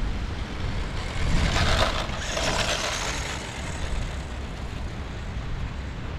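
Wind rumbling on the microphone, with the Losi Mini JRXT 1/16-scale RC truck's brushed motor and tyres on the dirt of the field swelling up as it runs close, about a second in, for about two seconds.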